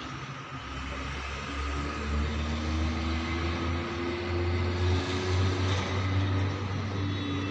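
A road vehicle's engine running, its low rumble slowly growing louder, with faint hums that sink slightly in pitch.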